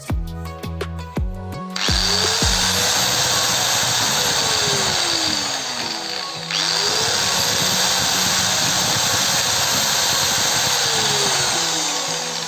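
Electric angle grinder switched on twice, each time spinning up, running free and winding down, over background music.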